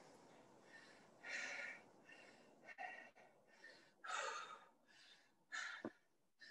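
Faint heavy breathing, a hard breath in or out about every second and a half, of a person getting their breath back after intense exercise.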